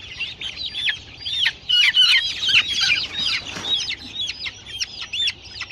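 A flock of broiler and layer chickens calling, many short high-pitched peeps overlapping without pause, busiest about two to three seconds in.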